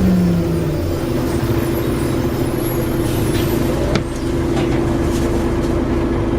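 Volvo Olympian double-decker bus's diesel engine running under way, heard from on board as a steady drone. Its note falls off at the start, and a short click comes with a brief dip in the sound about four seconds in.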